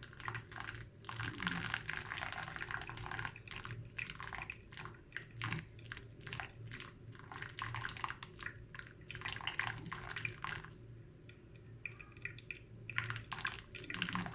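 Hot water poured onto the coffee bed in a V60 dripper for the final pour of a pour-over brew, a splashing stream that comes in uneven surges and eases off briefly about eleven seconds in.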